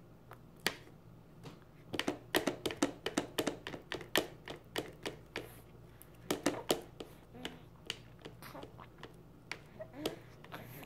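Small plastic baby spoon tapping and scraping on a plate while mashing banana: quick clicks in busy clusters about two seconds in and again about six seconds in, with scattered single taps between.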